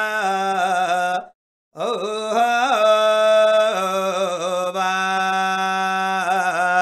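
A single voice singing Samaveda chant (sama gana). It holds long drawn-out notes with small wavering turns in pitch, breaking off for a short breath just over a second in.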